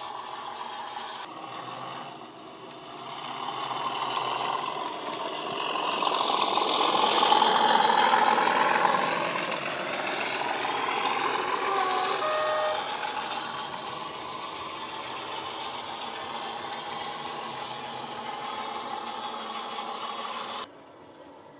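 A Class 37 diesel's English Electric engine sound played by a DCC sound decoder through a model locomotive's speaker, with the model train running on the track. It grows louder as the train passes close, about seven to nine seconds in, then fades.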